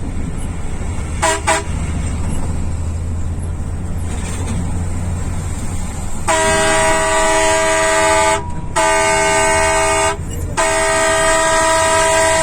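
A vehicle's multi-tone horn: two short toots a little over a second in, then from about six seconds on three long blasts, each one to two and a half seconds with brief breaks between. A steady low engine rumble runs underneath.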